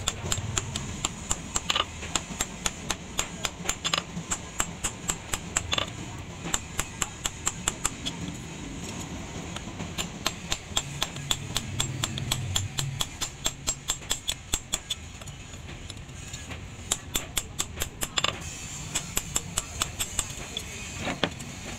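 Hand hammer striking a red-hot steel axe head on an anvil in a rapid, even rhythm of about three blows a second, with short pauses between runs of blows.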